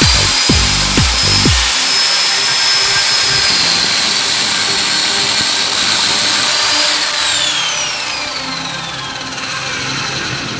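Miter saw's electric motor running free with a high whine, its pitch sagging slightly and then recovering. About two-thirds of the way in it winds down, the pitch falling steadily over a few seconds.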